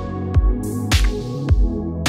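Background music with a steady drum beat: a low kick about twice a second and a sharp snare-like hit about once a second, over sustained held chords.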